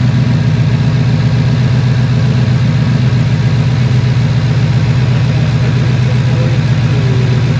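2015 Ford Mustang V8 engine idling steadily with a fast, even pulsing, while it misfires on cylinder 8 (code P0308).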